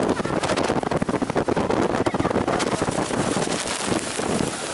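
Wind buffeting the microphone hard as a water-coaster boat descends the track at speed toward the water, a dense rushing noise with rapid crackles.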